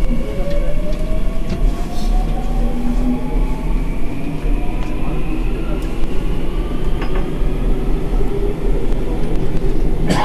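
Seoul subway Line 3 train pulling away from a station, heard from inside the car. The electric traction motors give a whine that rises steadily in pitch as the train gathers speed, over a constant running rumble. A sharp knock comes near the end.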